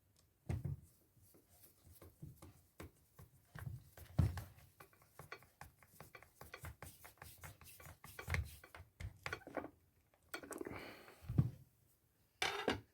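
Hands handling and fitting small parts of a Makita 4324 jigsaw during reassembly: a scattered run of small clicks and taps, with a few heavier knocks.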